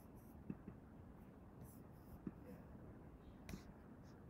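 Near silence: quiet room tone with a few faint, short clicks spread through it.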